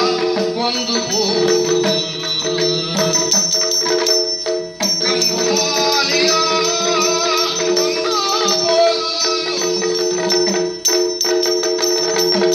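Yakshagana-style accompaniment music for a string-puppet dance: a steady drone held underneath, with rhythmic percussion and the regular clink of small metal cymbals or bells.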